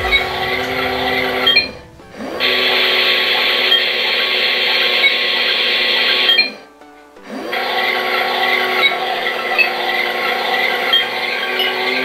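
Toy dishwasher's small water-pump motor whirring as it sprays water over the dishes inside. It cuts out twice, briefly, about two seconds in and again about six and a half seconds in, winding down and starting up again each time.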